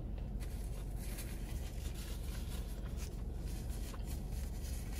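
Steady low background hum with faint small rustles and ticks.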